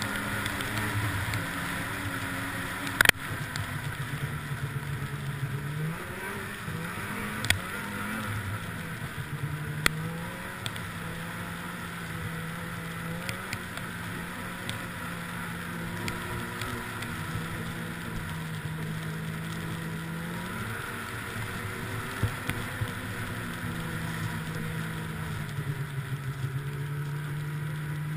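600-class snowmobile engine running at trail speed, its pitch rising and falling as the throttle is eased and opened again. A few sharp knocks come through, the loudest about three seconds in.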